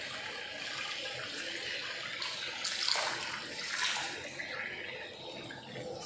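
Water running from a tap into a bathtub as a newly installed centralized water heater is tested, a steady rush that briefly grows louder twice near the middle.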